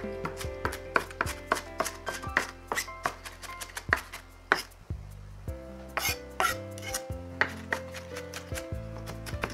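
Chef's knife mincing onion on a wooden cutting board: quick, uneven knocks of the blade against the wood, about two to three a second, with a short pause about halfway through.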